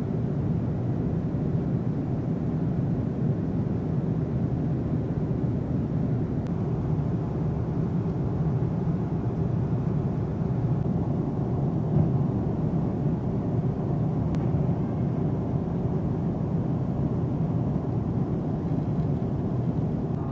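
Steady low drone inside the cabin of an Airbus A330 MRTT tanker aircraft in cruise flight: engine and airflow noise, unchanging throughout.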